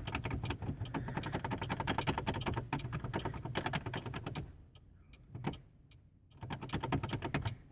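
Rapid plastic clicking of buttons in a Chevrolet Cobalt pressed over and over at random, the owner's trick for a car that won't start. The clicking stops for about two seconds past the middle, apart from one click, then starts again.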